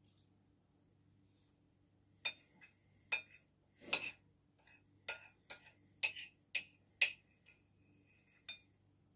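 Metal spoon clinking and scraping against a ceramic bowl while scooping couscous: about ten sharp clinks, irregularly spaced, starting about two seconds in.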